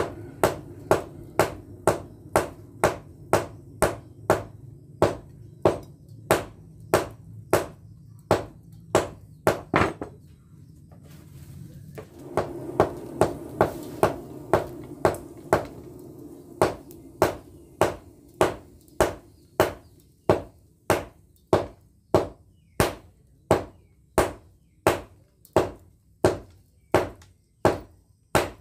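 Blacksmith's hand hammer striking a red-hot pamor steel billet on the anvil in steady blows, about two a second, pausing for about two seconds near the middle. A low hum runs under the blows in the first half.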